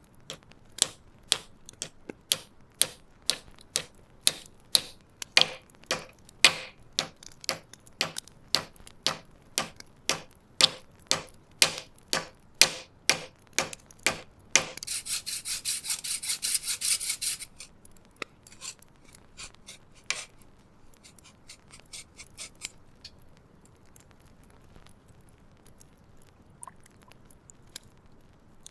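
Rhythmic hand rubbing strokes on the hammer, about two a second, like abrasive or filing work. About halfway through comes a burst of much faster strokes lasting around three seconds, and after that only faint scattered clicks.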